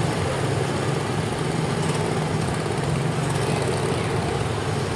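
Small gasoline engines of several Tomorrowland Speedway ride cars running together in a steady droning chorus as the cars move along the track.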